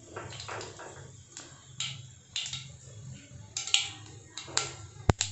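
Mustard seeds popping and spluttering in hot oil in a kadai as they are tempered. The pops are scattered and irregular, a few a second, with a sharper loud crack near the end, over a low steady hum.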